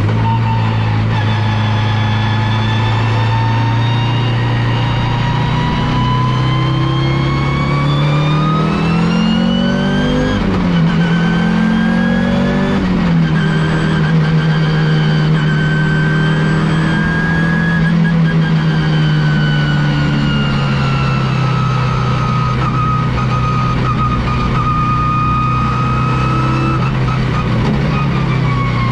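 Turbocharged five-cylinder engine of an Audi S2-R race car, heard from inside the car, pulling at steady revs. It rises and drops sharply twice, about ten and thirteen seconds in, as it shifts up. A high whine rises and falls slowly, apart from the engine note.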